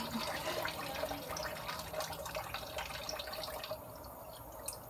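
Water running from a kitchen tap into the sink during dishwashing, with small clinks and knocks of dishes. The running water drops away about three and a half seconds in.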